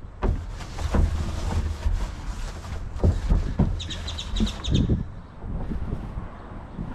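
A rag wiping and rubbing against the plastic inside of a wheelie bin, with wind rumbling on the microphone. A bird chirps a quick run of high notes about four seconds in.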